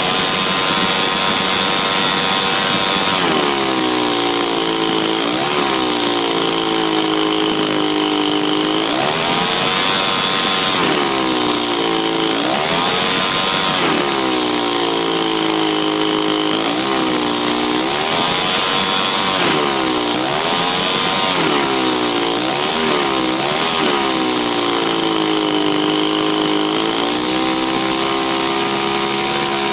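52cc two-stroke petrol engine of a large model aircraft running on the ground and spinning its propeller, the revs dipping and climbing back again and again before settling near the end.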